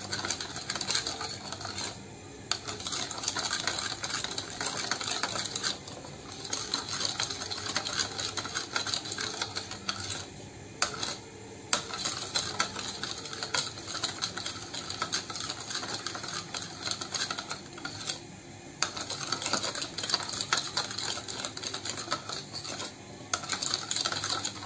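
Metal spoon stirring sauce in a glass bowl, clinking and scraping against the glass in a quick, continuous run of small clicks, with brief pauses every few seconds.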